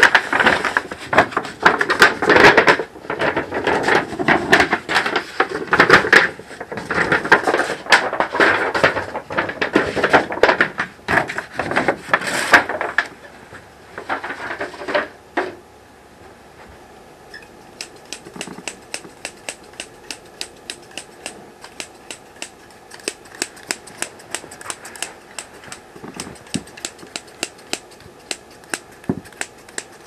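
A dense, irregular clatter of clicks and knocks for about the first thirteen seconds, then after a short pause a steady series of faint, sharp ticks, about three a second.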